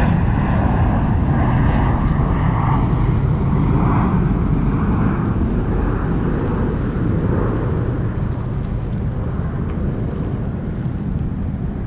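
Toyota Tundra pickup truck pulling away at low speed, its engine and tyres a steady low rumble that fades a little over the last few seconds.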